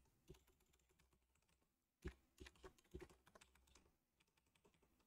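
Faint typing on a computer keyboard: a single key click, then a quick run of soft key clicks from about two seconds in to nearly four seconds.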